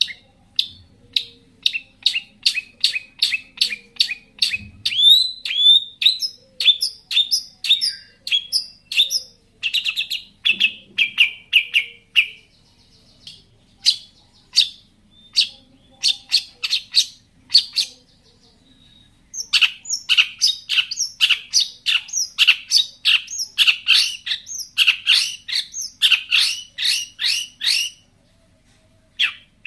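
Long-tailed shrike (cendet) singing a 'gacor' full-isian song: long runs of sharp, high chirping notes several a second. It breaks off briefly twice, then a denser, faster run follows from about 19 seconds in.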